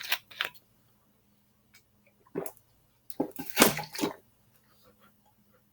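Sipping and swallowing: a few short wet mouth sounds, the longest and loudest about three to four seconds in.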